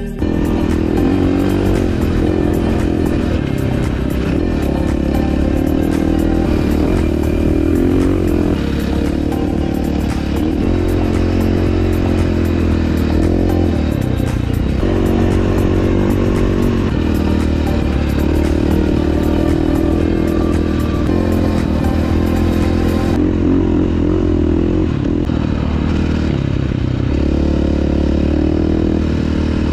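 KTM dirt bike's four-stroke single-cylinder engine running under way over sand, its note rising and falling again and again with the throttle.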